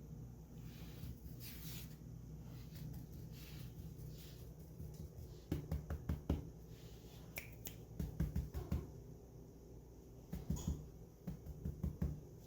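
Cats moving about on a cat tree: three clusters of soft thumps and sharp taps a couple of seconds apart, over a low steady hum.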